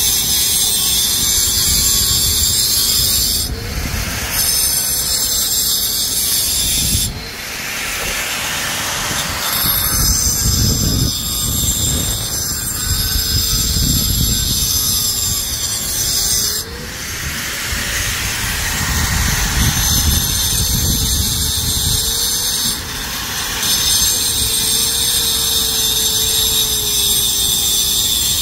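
Electric angle grinder grinding a concrete surface: a loud, steady high whine with a motor tone that dips and wavers as the wheel is pressed into the work, its sound changing briefly every few seconds.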